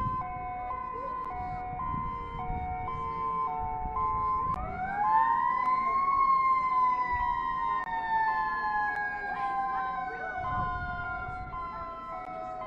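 Tsunami warning sirens sounding. One alternates steadily between two pitches, while another winds up into a rising wail a little over four seconds in, peaks, and slowly falls away.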